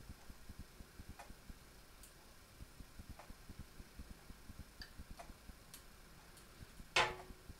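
Faint light clicks of a small kitchen knife being handled, over a faint rapid low ticking, then one sharp clink with a short ring about seven seconds in.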